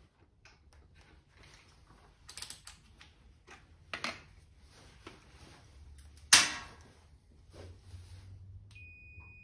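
A test meter and its leads are handled, giving scattered small plastic clicks and knocks, the sharpest about six seconds in. Near the end a multimeter gives its continuity beep, a steady high tone.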